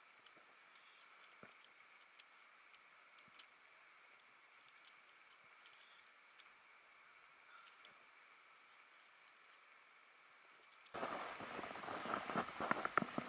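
Faint, scattered light clicks and rattles of aluminium tent pole sections being handled and folded. About eleven seconds in, a much louder crunching and scraping of steps in snow with a sled being hauled takes over.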